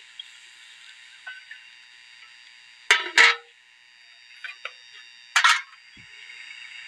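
Aluminium lid set down on a cooking pot with two quick metal clanks, followed a couple of seconds later by another metallic clank, over a steady faint hiss.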